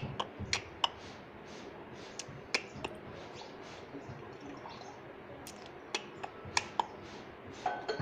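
About ten sharp, irregular clicks and taps over a faint steady hiss.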